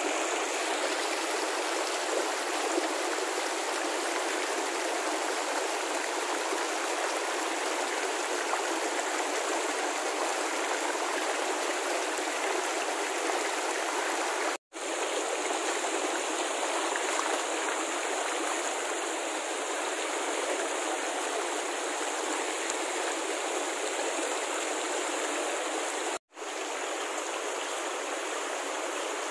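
Shallow rocky mountain stream rushing steadily over stones. The sound cuts out for an instant twice, about halfway and near the end.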